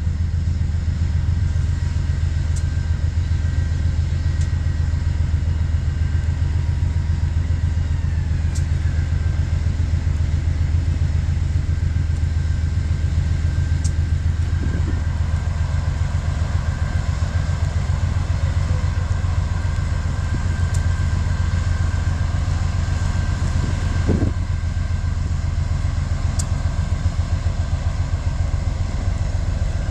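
Diesel engine of a GE AC44i diesel-electric locomotive running with a loud, steady low rumble.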